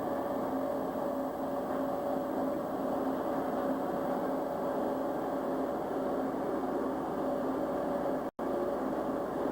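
Steady mechanical drone with a constant low hum, unchanging throughout. It cuts out for a split second near the end.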